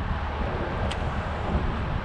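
Wind buffeting the microphone in a low, uneven rumble over a steady rushing hiss, with one brief tick about a second in.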